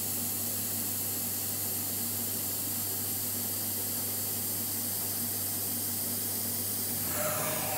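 Steady loud hiss of workshop noise over a low hum, with a short falling whine near the end.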